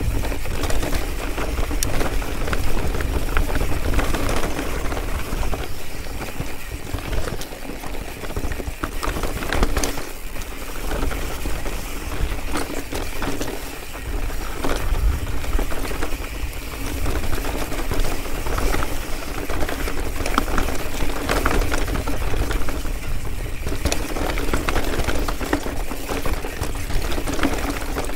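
Mountain bike rattling over rocks on a fast descent: a dense clatter of irregular knocks and clicks from the bike, with a steady low wind rumble on the microphone.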